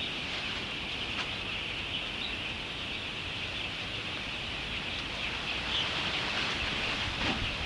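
Steady outdoor ambience: a continuous high-pitched drone over a low rumble of wind, with a few short chirps about six and seven seconds in.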